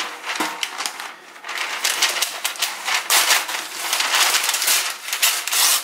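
Parchment paper rustling and crinkling as it is unrolled from its roll over a metal baking pan and torn off, in a run of irregular crackly rustles.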